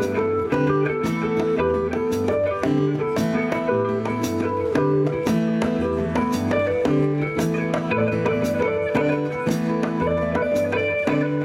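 Live band music in an instrumental passage: guitar over a bass line and drum kit with a steady beat.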